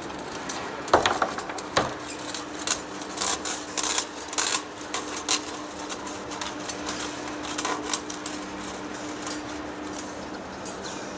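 Heavy-duty lathe running with a steady hum, overlaid by a run of sharp metallic clinks and knocks, the loudest about a second in; the clinks thin out after about eight seconds.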